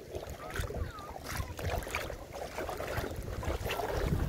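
Wind buffeting the microphone over small waves lapping in shallow sea water, an uneven low rumble with a hiss of water.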